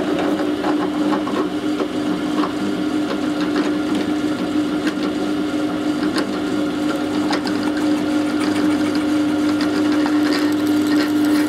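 Electric drill running at a steady speed with a step drill bit, cutting into a broken-off screw end in a brass meter terminal to get a starting mark on it.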